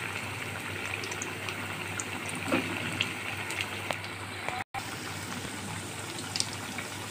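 Besan-battered kakrol (spiny gourd) fritters deep-frying in hot oil in a kadai: steady sizzling with scattered crackles and pops. The sound cuts out for an instant about two-thirds of the way through.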